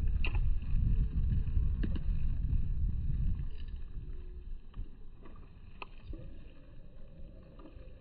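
Low, uneven rumble of wind buffeting a smartphone's microphone, strongest for the first three seconds and then easing, with a few faint clicks.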